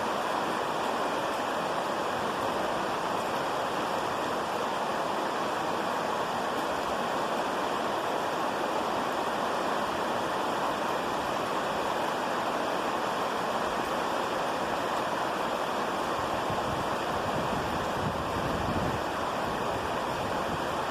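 Steady rain falling, an even continuous hiss with no thunderclaps.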